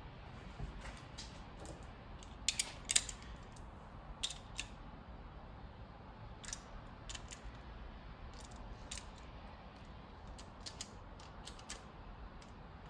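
Irregular metallic clicks and clinks of hand tools and rocker-arm hardware while snugging down the rocker arm bolts on a 3.8L V6 engine. The loudest cluster comes about two and a half to three seconds in, with lighter scattered clicks after.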